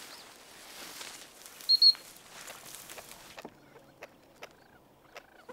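Footsteps rustling through tall dry grass and brush, with one short, loud, high whistle a little under two seconds in. The rustling stops suddenly about three and a half seconds in, leaving a quiet background with a few faint clicks.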